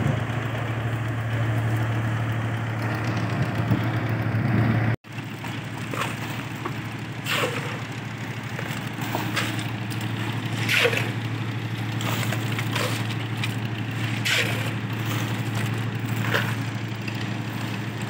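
A site engine running steadily with a low hum. After a brief cut-out about five seconds in, short clatters come roughly every two seconds.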